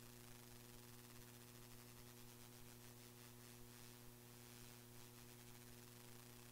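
Near silence: a faint steady electrical hum with hiss, no speech.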